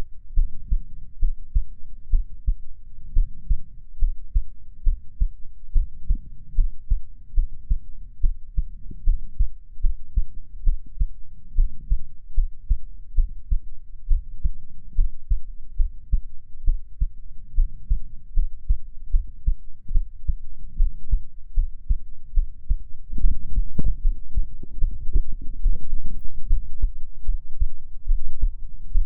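Human heartbeat heard close up as a steady rhythm of low, soft thumps. It grows louder with more low rumble for the last several seconds.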